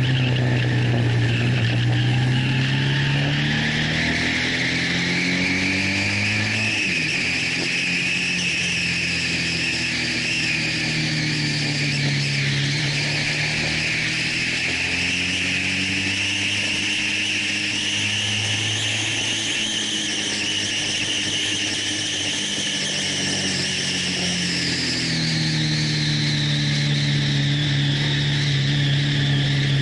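Honda VFR1200's V4 engine at track speed, heard from a camera mounted on the bike, its pitch falling and rising several times as the rider brakes for corners and accelerates out, over steady wind rush.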